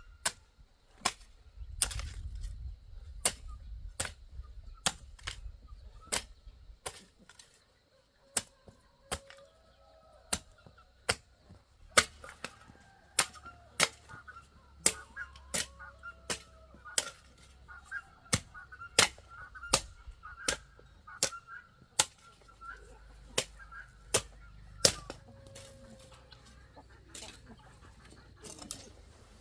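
Sharp knocks repeating about once or twice a second, with chickens clucking and calling behind them.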